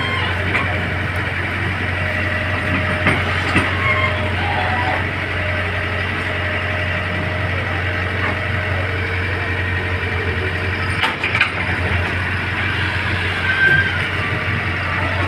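Heavy engine of road construction machinery running steadily with a constant low hum, with a few short knocks about eleven seconds in.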